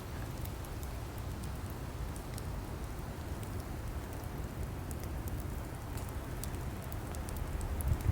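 Burning logs crackling: scattered sharp pops and ticks over a steady low rumble of the flames.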